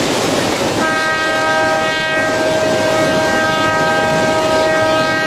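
Diesel locomotive horn sounding one long, steady blast that starts about a second in and is held for over four seconds, over a constant rush of surf and wind.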